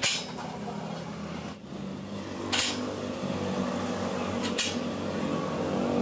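Steel parts of a homemade welded gate latch clacking as it is worked by hand and the gate leaves are pulled apart: a sharp metal clack at the start, a louder one about two and a half seconds in and another near the end. A low steady hum runs underneath, growing from about two seconds in.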